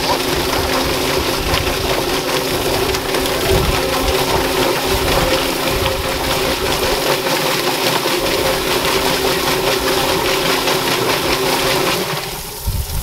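Yardbird chicken plucker running: its electric motor hums steadily while the spinning drum's rubber fingers tumble a chicken under water from a hose, giving a constant dense swishing. It shuts down about twelve seconds in.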